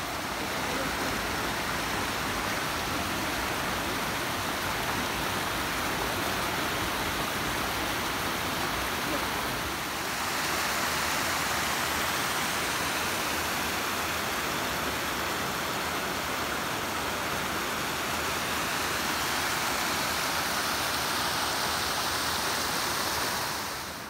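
Mountain stream rushing over rocks in small white cascades, a steady loud rush of water that grows a little louder about ten seconds in and fades away at the very end.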